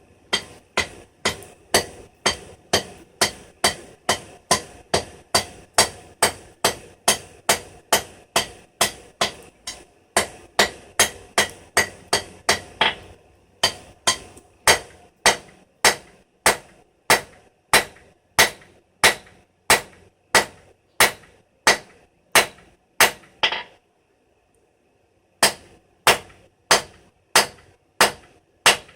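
Blacksmith's hammer striking steel round stock on an anvil, about two blows a second, each blow ringing; forging the rusty bar into a square. The hammering pauses briefly twice, the longer break near the end.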